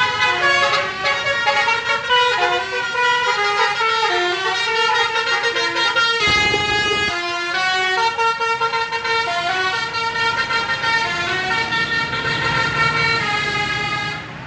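Telolet basuri multi-tone horn on a tour bus playing a tune: a quick run of short horn notes stepping up and down in pitch.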